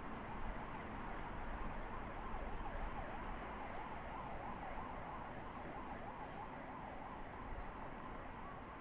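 A distant emergency vehicle siren, its pitch swinging quickly up and down and fading near the end, over the steady hum of city traffic.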